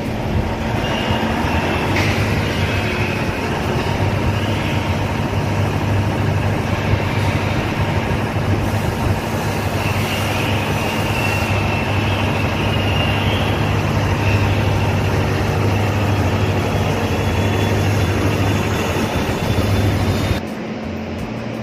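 Cummins diesel generator set starting up and running with a loud, steady low drone. About a second before the end it drops away abruptly to a quieter steady hum.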